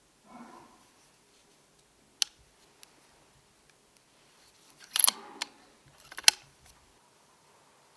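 Sharp mechanical clicks from a Brocock Concept XR pre-charged air rifle: a single sharp click about two seconds in, a quick cluster of clicks and rattles around five seconds, and another sharp click a second later.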